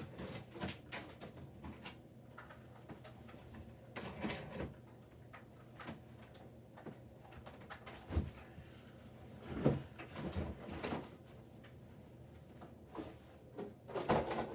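Scattered knocks, light clatter and rustling in a small room as someone moves about and handles things: the thuds and shuffles of items being picked up and set down, with a low thump about eight seconds in and a louder cluster near the end.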